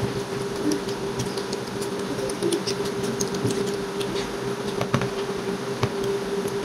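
Children eating rice and chicken curry by hand: scattered small clicks of chewing and fingers working the food on the plates, over a steady hum.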